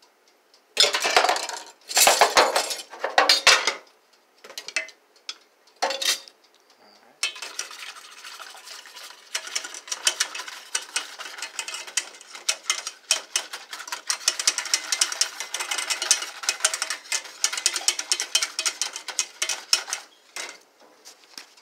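A wire whisk beating a milk-and-flour mixture for a cream sauce: a fast, continuous clicking against the bowl that starts about seven seconds in and stops near the end. Before it come a few short clatters of utensils.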